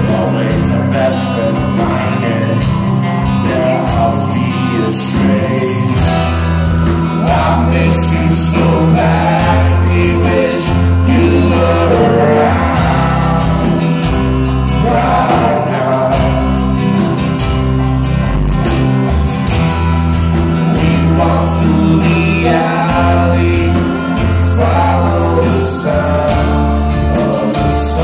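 Live band music: acoustic guitar, electric bass, keyboards and drums playing a song, with a heavy, pulsing bass line and a male voice singing.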